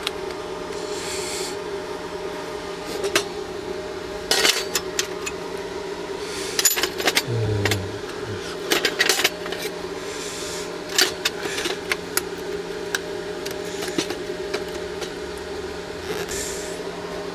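Steel workpieces and tools being handled: scattered sharp metallic clinks and short scraping rubs at irregular times, over a steady electrical hum.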